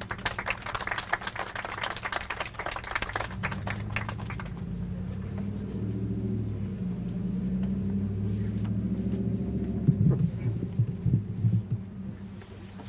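Short burst of applause from a small outdoor audience, fading after about four seconds. It gives way to a low, wavering rumble and hum through the microphone and PA, with a few dull thumps near the end as the microphone stand is handled.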